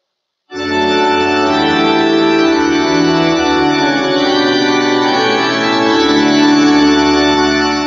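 Organ playing sustained chords that change slowly, starting about half a second in and dying away near the end.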